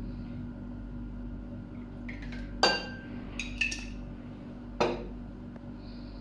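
Glass clinks from handling a glass bottle of woodapple nectar at a table: a loud ringing clink about two and a half seconds in, a quick pair of lighter clinks about a second later, and a knock near five seconds as the bottle is set down on the wooden table.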